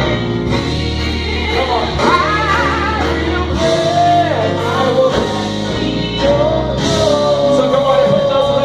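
Live church music: a singer's voice with vibrato over bass and guitar accompaniment, holding one long note near the end.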